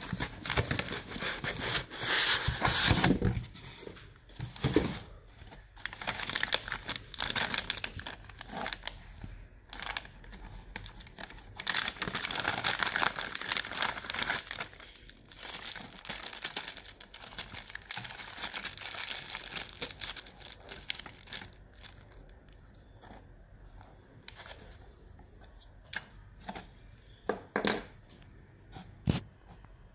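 Clear plastic zip bag crinkling and rustling as it is handled and opened to take out a coiled cable. It goes quieter about two-thirds of the way in, with a few light knocks near the end.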